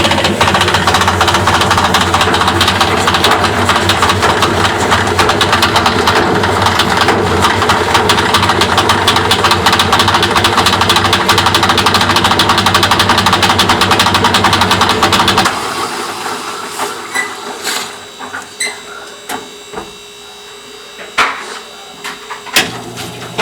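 Washing machine running with a loud, fast metallic rattle over a steady hum, which the owner suspects is coins loose inside the machine. The rattle stops suddenly about fifteen seconds in, leaving a few scattered clicks and knocks.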